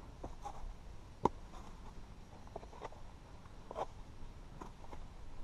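Footsteps on rock: shoes scuffing and tapping irregularly on stone slabs during a rocky climb, with one sharper click a little over a second in.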